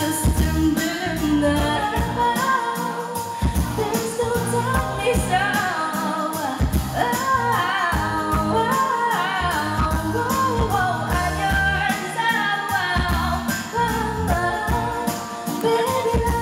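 Live pop song: a female singer's voice over a band with a steady drum beat.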